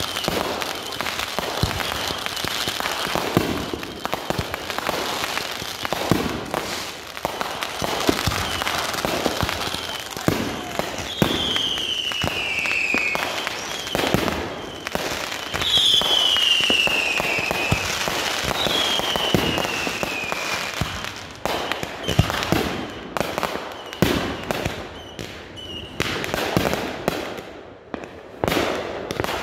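Consumer fireworks grand finale: cakes firing a continuous volley of launch thumps, bangs and crackling bursts. Three falling whistles sound in the middle, about 11, 15 and 18 seconds in.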